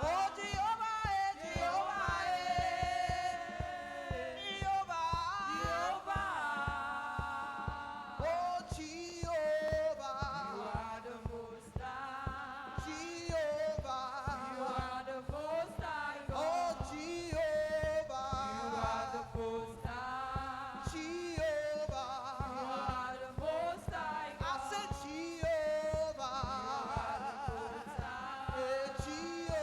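Church congregation singing a gospel praise chorus over a steady drum beat, as an offering song.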